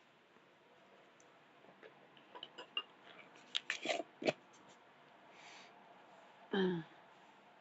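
A scattered run of small soft clicks and ticks for a few seconds, then one short vocal sound falling in pitch, the loudest thing, near the end.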